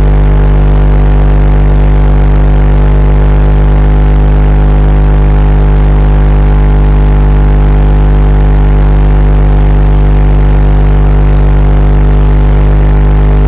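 Loud, steady electrical buzzing hum in the FPV drone's video-link recording, a fixed set of low tones that does not change at all while the drone lies still on the ground.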